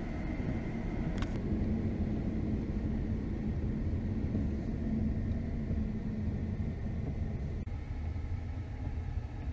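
Cabin noise of a Kia car driving on wet streets: a steady low road rumble with an engine hum, and a single click about a second in.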